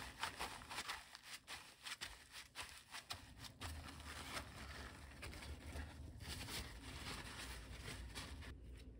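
Faint, irregular rustling and crinkling of paper towels being pressed onto minced beef in a stainless steel bowl and peeled off, blotting the blood from the meat. A low hum comes in about a third of the way through.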